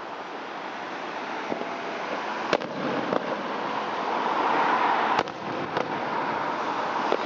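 Fireworks display: a continuous noisy wash of bursting shells that swells through the middle, with a few sharp bangs, two of them close together about five seconds in.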